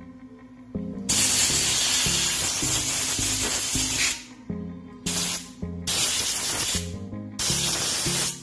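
Compressed-air blow gun hissing in blasts at an angle grinder's gear head, blowing out dust and packed dirt: one long blast of about three seconds, then three short ones. Background music plays underneath.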